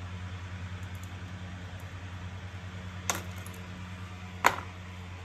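Two small screws dropped into a clear plastic tub: two sharp clicks about a second and a half apart, the second louder, over a steady low hum.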